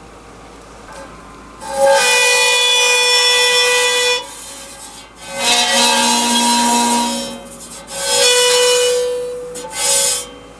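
Cymatics plate set vibrating in four loud sustained tones, each lasting one to two seconds, rich in overtones with a rasping hiss; the pitch and overtones shift from one tone to the next as new patterns form.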